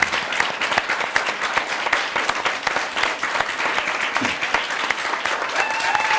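Studio audience applauding with dense, even clapping. A steady high tone joins near the end.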